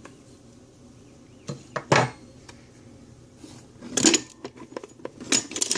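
Metal hand tools clinking and clattering as they are handled and set down: a couple of knocks about two seconds in, another around four seconds, and a quick run of clinks near the end.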